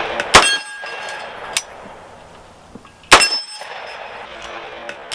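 Gunshots fired at a steady pace, about three seconds apart, three in all, each followed by a brief metallic ringing.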